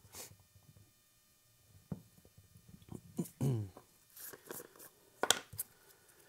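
Light clicks, taps and small scrapes of containers and tools being handled while mixing epoxy, with a short falling tone about three and a half seconds in and a sharp click a little past five seconds.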